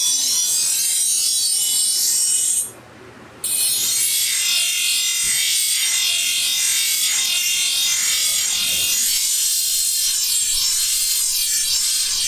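Steel knife blade ground against a bench grinder's spinning abrasive wheel: a steady, harsh high hiss of metal being ground, throwing sparks. It breaks off for under a second about three seconds in, then carries on.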